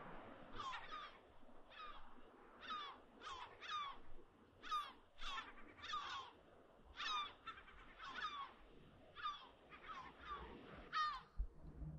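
Birds calling over and over: short calls that fall in pitch, about one or two a second, some overlapping.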